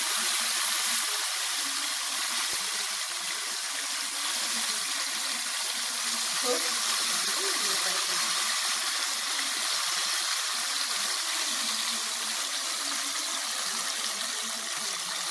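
Masala-coated pomfret pieces shallow-frying in hot oil in a pan: a steady sizzle, a little louder in the first second as fresh pieces go into the oil.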